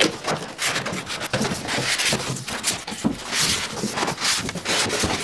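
Foam packing blocks and a cardboard box rubbing and scraping as a cutting machine is worked out of its packaging: an irregular run of scraping and rustling, with a few louder scrapes.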